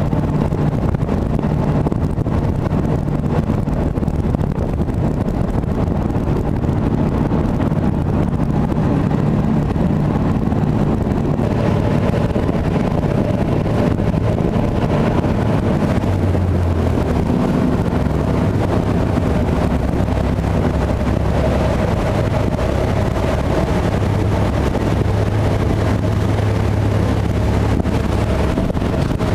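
Fast passenger ferry under way at speed: its engines give a steady low drone, with water rushing in the foaming wake and wind buffeting the microphone.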